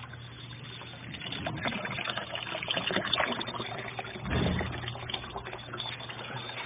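Water sloshing and trickling inside the tub of a Consul Ideale 4 kg washing machine, over a steady low hum. The water sound gets louder about a second in, with a heavier low surge around four seconds in.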